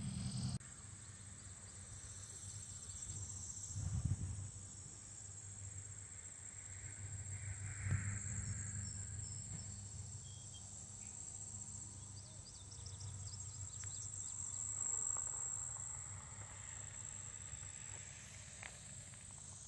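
A steady, high-pitched insect chorus droning without a break, over a low rumble that swells a few times.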